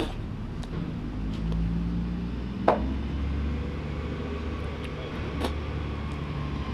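Steady low rumble of a vehicle running, with a sharp click about two and a half seconds in and a fainter one later.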